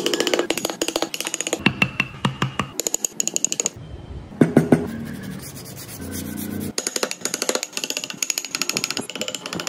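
Hand chisels cutting and paring wood: quick runs of sharp taps and scrapes, several a second, with a short break about four seconds in.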